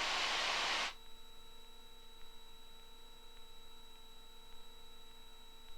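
Cockpit radio and intercom audio feed: a hiss of open-channel static that cuts off suddenly about a second in, leaving a faint steady electrical hum with a few thin whining tones.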